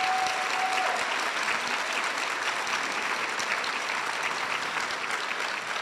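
Audience applauding: steady clapping from a hall full of people that slowly dies down toward the end.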